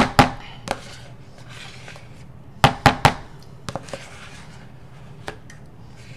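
Sharp plastic knocks and taps from an upturned Cool Whip tub being worked over a mixing bowl to get the last of the whipped topping out. There are a few knocks in the first second, three louder ones in quick succession about two and a half seconds in, then a few lighter taps.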